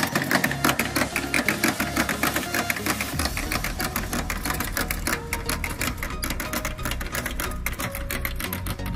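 Hand-pushed rolling maize planter clicking rapidly and regularly as its spiked drum wheel turns over the soil and works the seed-metering mechanism.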